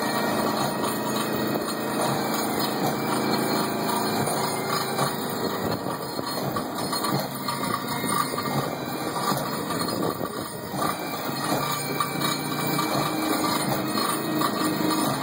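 Diesel engine of an excavator fitted with a hydraulic auger drill attachment, running steadily.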